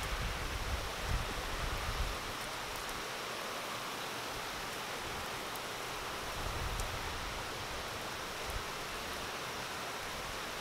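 Heavy thunderstorm rain pouring down in a steady hiss. There is a low rumble in the first two seconds and again about six and a half seconds in.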